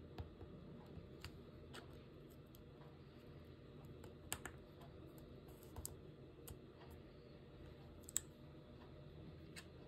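Scattered, irregular faint clicks, about eight of them, the loudest about four and eight seconds in, over a low steady hum.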